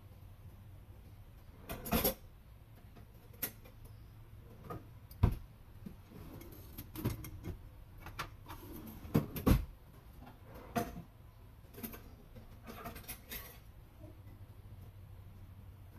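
Scattered knocks and clatters of things being handled in a kitchen, about a dozen, the loudest around two, five and nine seconds in, over a faint steady low hum.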